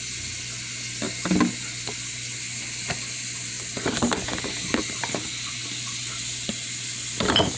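Steady sizzling hiss in a kitchen, with scattered light clicks and knocks of things being handled, more of them near the end.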